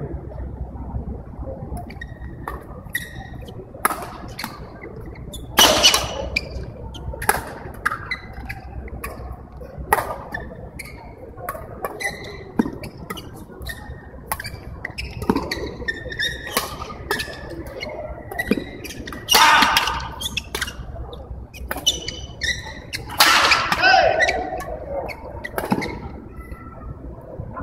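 Badminton doubles rally in a large indoor hall: a string of sharp racket-on-shuttlecock hits and squeaking court shoes. A few louder bursts stand out, about six seconds in, around two-thirds of the way through, and near the end.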